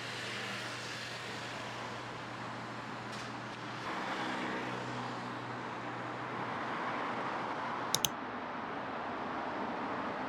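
Steady background noise with a low, even hum. Two sharp clicks come about eight seconds in.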